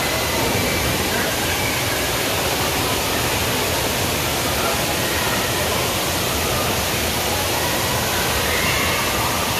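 Steady rush of moving water at an indoor water park's lazy river, with faint voices of swimmers mixed in.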